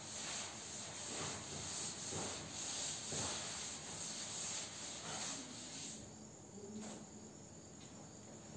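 Cloth duster wiping chalk off a blackboard in repeated back-and-forth strokes, which stop about six seconds in.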